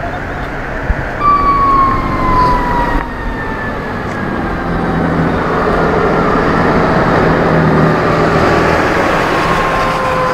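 Fire engine siren sounding, its pitch falling slowly, with the truck's engine noise rising about halfway in.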